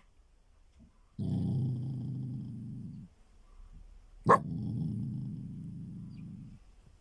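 Small dog growling low in two rumbles of about two seconds each, the second starting with one sharp bark.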